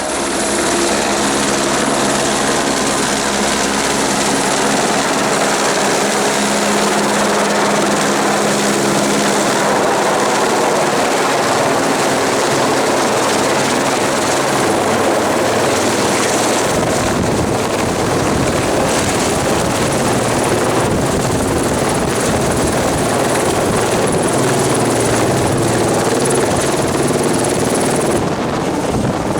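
Helicopter running loud and steady, its rotor and engine noise filling the sound. It swells in the first second, and the low end deepens about 17 seconds in.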